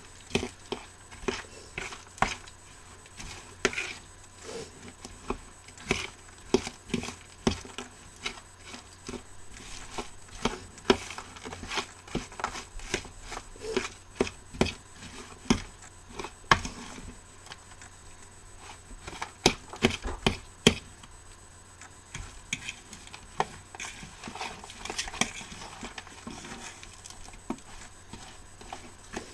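A fork stirring and mashing a ground turkey meatloaf mixture in a plastic bowl, giving irregular clicks and taps of the fork against the bowl, a few a second, with louder clusters of clicks.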